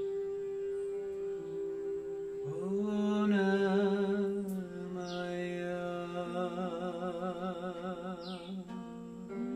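Wordless chant-like singing over a steady held drone tone: the voice swells in about two and a half seconds in and holds long notes, wavering with vibrato near the end. A few short, high, falling chirps sound above it.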